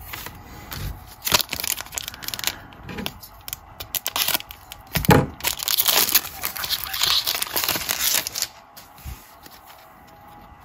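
Wrapper of a Panini Mosaic trading-card pack crinkling and tearing as it is ripped open by hand: a run of sharp crackles, densest from about halfway to near the end. After that it goes quieter as the cards are handled.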